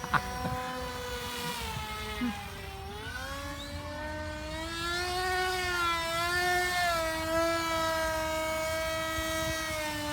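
RC model airplane's motor and propeller buzzing in flight with a steady pitched drone. The pitch climbs about three seconds in, then rises and falls gently as the plane flies.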